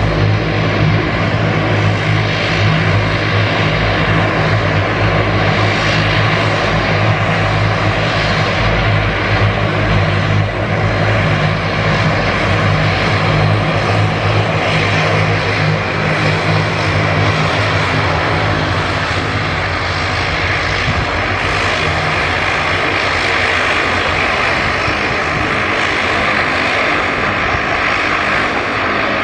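Propeller aircraft engines running loudly, with a steady low drone. About two-thirds of the way through, the drone eases and a higher rushing sound builds.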